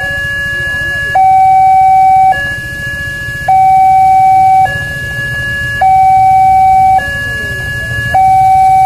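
Electronic railway level-crossing alarm sounding its two-tone warning. A lower tone and a higher tone alternate, each held a little over a second, and the lower tone is the louder.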